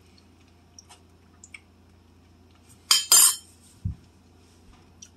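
Eating utensil clinking and scraping against a bowl of stir fry: a few faint ticks, then two short loud scrapes about three seconds in, followed by a dull thump.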